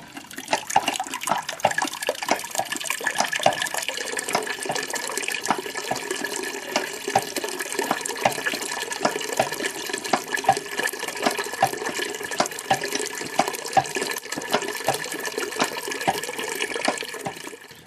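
Water running and splashing into the laundry-tub sink that holds the garbage-disposal apple grinder, with lots of small irregular splashes. It starts abruptly and stops just before the end.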